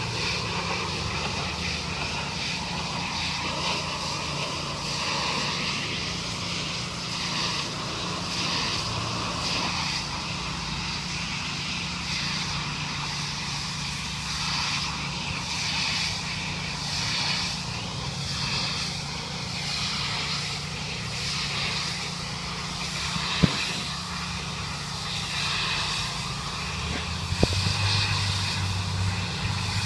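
Pressure washer running steadily: a constant engine hum under a wavering hiss of spray, with two sharp knocks in the last several seconds.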